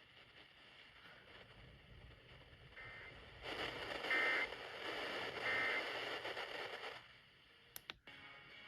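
Radio static hiss that starts suddenly, holds for about three and a half seconds and cuts off, with a few faint short tones inside it. Two sharp clicks follow near the end.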